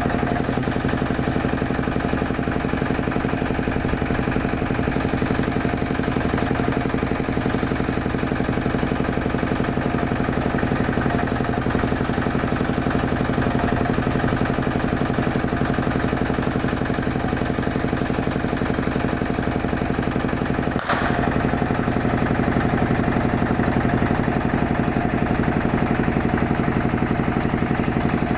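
An engine running steadily at a constant speed, with a brief click about three-quarters of the way through.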